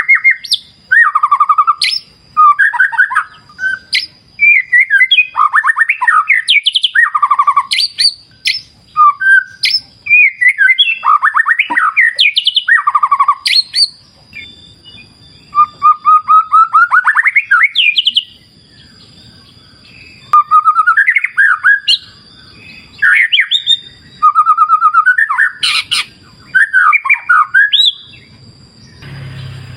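White-rumped shama singing: loud, varied phrases of whistles and rapid trills with short pauses between them, over a steady thin high tone. A low rushing noise comes in at the very end.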